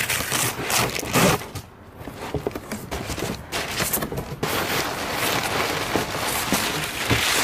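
Cardboard shipping box being handled and opened by hand: cardboard scraping and rustling with short knocks, turning into steadier scraping about halfway through.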